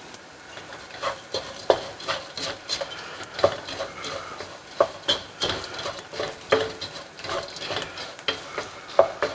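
Wooden spatula stirring and scraping chopped almonds, raisins and melting sugar around a nonstick pan, in quick, irregular strokes with frequent scrapes and clicks.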